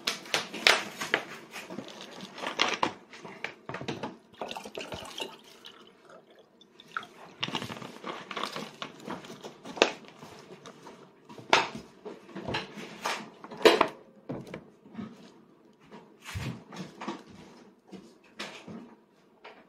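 A toddler eating crusty bread: wet chewing and mouth smacks with irregular soft clicks, a few of them louder, and the odd light knock of tableware.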